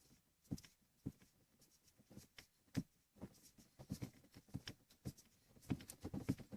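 Faint, irregular clicks and taps of hard plastic gear knob parts being handled, a little busier near the end.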